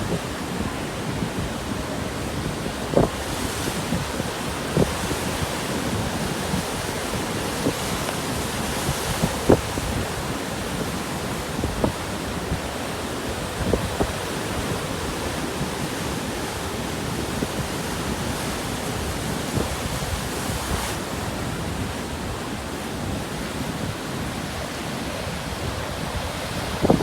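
Rough, choppy surf from a typhoon swell washing and breaking continuously, with strong onshore wind buffeting the microphone in short low thumps every few seconds.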